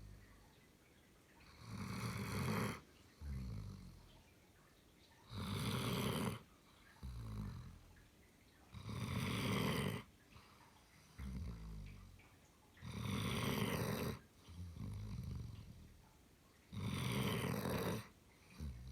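German Shepherd dog snoring in deep sleep in a slow, regular rhythm. Each breath is a loud rasping snore about a second long, followed by a shorter, lower one that falls in pitch, repeating roughly every four seconds.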